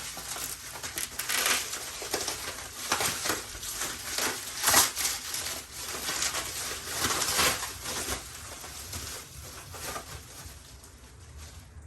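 Packaging crinkling and rustling as it is handled and pulled off a new motorcycle exhaust, in irregular bursts with one louder crackle about five seconds in.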